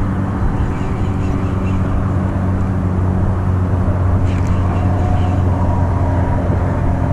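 A boat motor running with a steady, even drone: a low hum with several steady tones above it.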